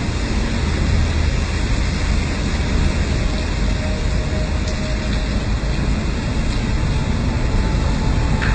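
Steady rush of a heavy rainstorm, with wind buffeting the microphone as a constant low rumble.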